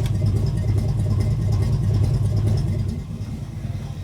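1959 Pontiac Catalina V8 idling steadily on its first run after years of sitting, with a misfire the owner notes. There is a sharp knock right at the start, and the idle eases slightly after about three seconds.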